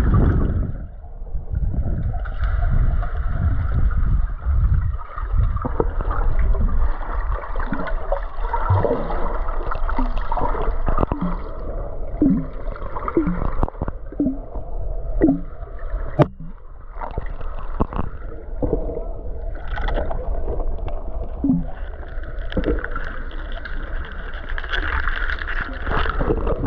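Muffled underwater sound of water moving around a submerged microphone: a steady low rumble with gurgles and short bubbling blips, and one sharp click about sixteen seconds in.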